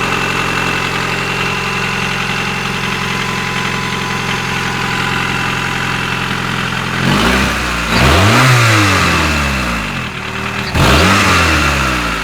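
Honda F20Z1 inline-four engine idling steadily, then revved twice, each rev rising and falling back. The owner is chasing a ringing knock that appeared after an engine rebuild, partly masked by the exhaust noise.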